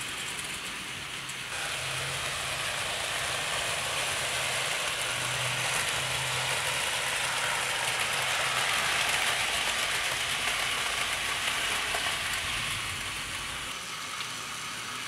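Hornby 00 gauge GWR Hall class model locomotive running with a train of empty wagons: a steady rushing whirr of the electric motor and wheels on the track. It swells about a second and a half in, is loudest around the middle, and eases off near the end.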